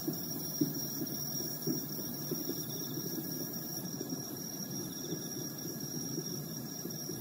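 Distant jet airliner passing overhead: a low, uneven rumble with a few soft thumps in it. A steady high insect chirr runs behind it.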